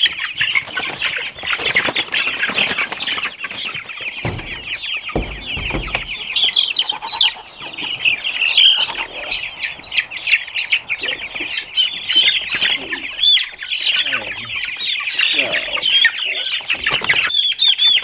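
A crowd of young meat-bird chicks peeping continuously, many shrill high chirps overlapping, as they are caught and loaded into plastic poultry crates. Two dull thumps come about four and five seconds in.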